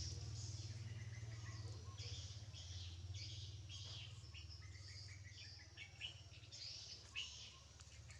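Small birds chirping: many short, high chirps scattered throughout, over a steady low hum.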